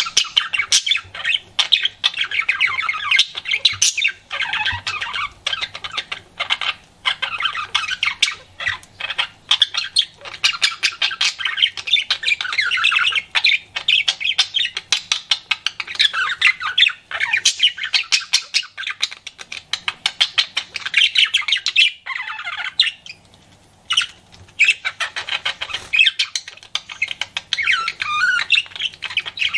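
Pet budgerigar chattering and warbling in a rapid, continuous stream of chirps, clicks and squawks, with a short pause about two thirds of the way through. Budgies make this chatter when courting.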